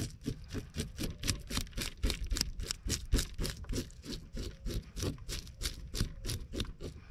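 A spoon scraping scales off a black sea bass in rapid, evenly spaced strokes, around six a second; the scales come off easily.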